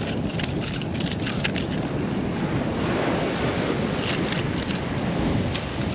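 Wind buffeting the microphone over the steady wash of surf, with scattered short rustles and crackles on top.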